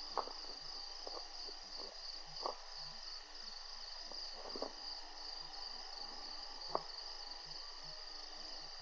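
Insects chirring steadily at a high pitch, with a few short faint clicks or taps at irregular moments.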